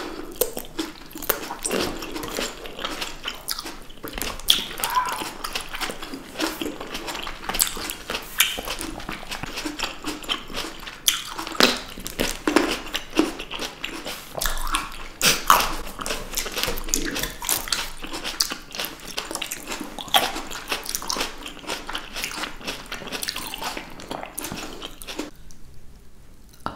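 Close-miked chewing of juicy fruit, red grapes and blood orange segments: wet biting and squishing in a quick, uneven run of clicks, dying away near the end.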